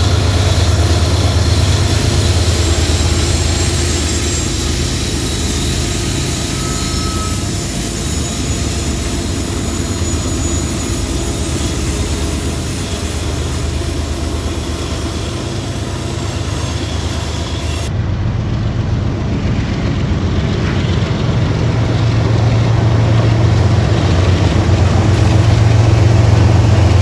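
Diesel freight locomotives running past with a steady low engine drone and rail noise. The sound changes abruptly to another train about 18 seconds in, and that engine grows louder near the end.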